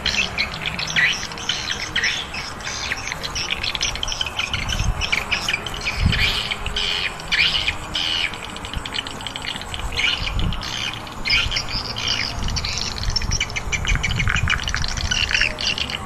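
Many birds chirping continuously in a dense chorus of short calls, with a few low rumbles underneath.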